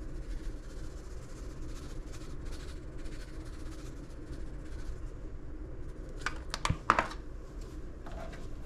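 Black pepper being shaken from a small tin over raw redfish fillets, faint light ticks, then a few sharp clicks about six to seven seconds in as the tin is set down on the counter.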